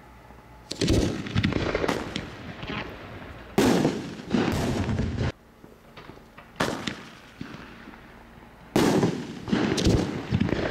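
Megaton Bombs aerial firework shells bursting: a series of loud bangs a few seconds apart, each followed by a fading spatter of smaller pops.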